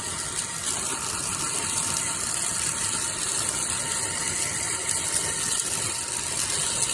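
Fanttik Fold V10 Apex cordless handheld car vacuum running on its low setting, a steady motor whine with the rattle of dirt and grit being sucked up through the nozzle.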